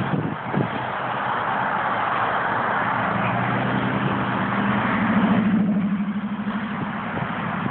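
A motor vehicle passing on a snowy road: its engine note swells to a peak about five seconds in and then fades, over steady rushing road and wind noise.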